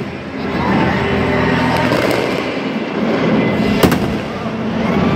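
Fireworks aerial shells bursting over a dense crackle, with two sharp bangs, a lighter one about two seconds in and the loudest about four seconds in.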